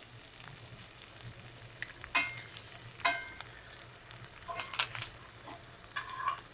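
Butter, garlic and thyme sizzling around a steak in a cast iron skillet, with sharp clinks of a spoon against the pan; two of them, about two and three seconds in, ring briefly.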